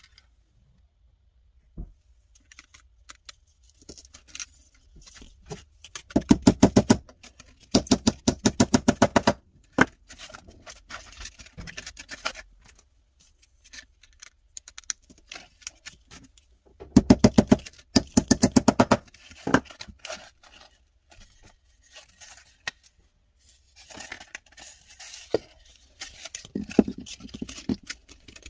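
Sandpaper and thumbtacks being handled on a wooden block: quiet rustles and taps, with three loud runs of rapid crackling, about a second each. Two come close together about a quarter of the way in and one a little past the middle.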